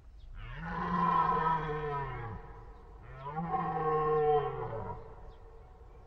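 Red deer stag roaring its deep rutting call, twice: two long roars of about two seconds each, the second beginning about halfway through.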